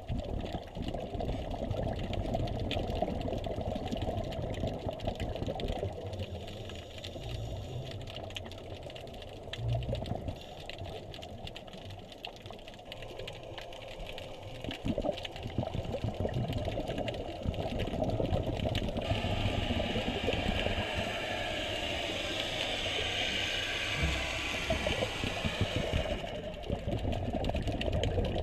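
Underwater sound picked up by a camera moving over a rocky reef: dense crackling clicks over a low rumble, with a stretch of hissing from about two-thirds of the way through until shortly before the end.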